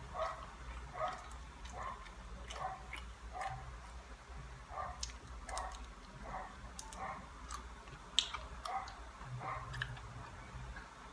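A dog barking over and over, faint and steady at about two barks a second, with scattered soft clicks of eating close by.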